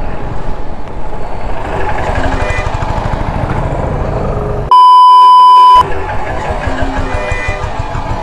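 Riding noise from a scooter in traffic: wind buffeting the microphone, with a motorcycle engine running alongside. About five seconds in, a loud, steady, high censor bleep blanks out all other sound for about a second.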